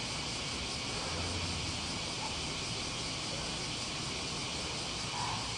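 Steady, even insect chorus droning without a break.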